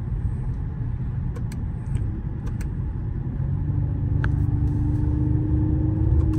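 Interior rumble of a Mercedes-AMG GLE 53 driving: road and engine drone. About halfway through, a steady hum joins in and the sound grows slightly louder, with a few faint clicks.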